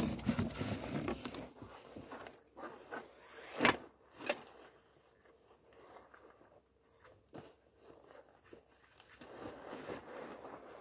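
A fabric rod holdall being handled with rods and reels inside: rustling and scraping of the bag, a zip, and a sharp knock about three and a half seconds in, with a quieter stretch in the middle.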